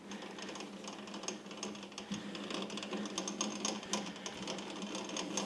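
A 60-degree threading tool bit dragged across a metal dial collar on a lathe, scribing an index line a little deeper: a rapid, scratchy run of small ticks and scrapes over a steady low hum.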